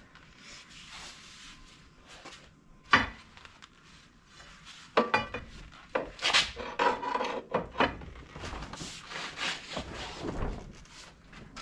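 Hand work on a machine's track undercarriage: scraping and rubbing with scattered knocks, a single sharp knock about three seconds in, then a busy run of clanks and scraping from about five seconds on.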